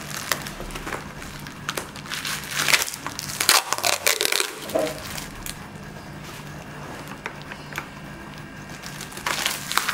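Clear plastic packing tape crinkling and crackling as it is cut with scissors and peeled off a motorcycle helmet shell, with the loudest bursts about three to five seconds in and again near the end.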